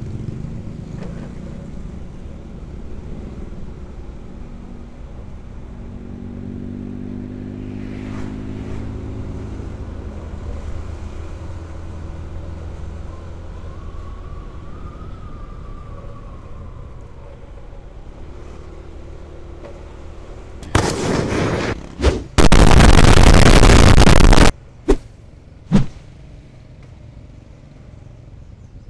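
Motor scooter engine running while riding, its pitch rising several times as it accelerates, with road and wind noise. About two-thirds of the way through come a few seconds of very loud harsh noise, then two short sharp pops.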